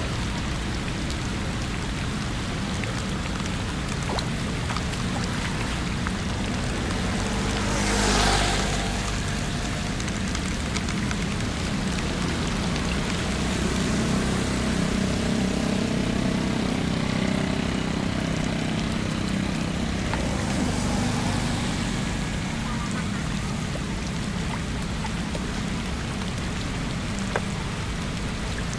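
Steady heavy rain, with vehicles driving past on a flooded road: one swishes by quickly about eight seconds in, and a slower one with a low engine rumble passes from about thirteen to twenty-two seconds.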